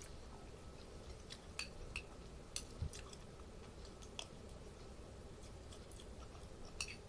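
A person chewing a mouthful of sardines, vegetables and rice and spooning more from a plate, with a few scattered sharp clicks.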